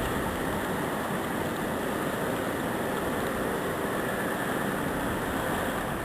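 Steady rush of wind blowing snow during a heavy snowstorm.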